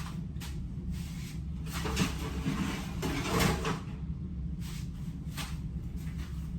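Kitchen cabinet opened and a pan taken out, with a knock about two seconds in and a louder clatter around three and a half seconds. A steady low hum runs underneath.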